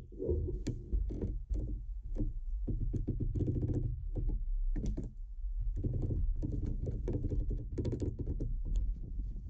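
Stones clacking and a metal crane hook knocking against rock as stones are handled and set into it: many short sharp knocks and clicks, irregular, over a steady low rumble.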